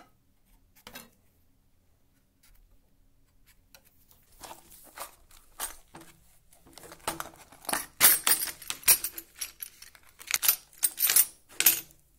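Clear plastic case of steel drill bits being opened and handled: the plastic clicks and crackles while loose bits rattle and clink against each other. It is irregular and busiest in the second half.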